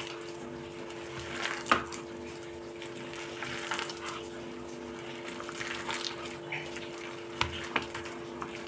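Hand kneading and squeezing a moist mix of shredded cabbage and vegetables with flour in a glass bowl: soft squishing and rustling, with occasional sharp clicks of the hand knocking the glass, the sharpest nearly two seconds in. A steady low hum runs underneath.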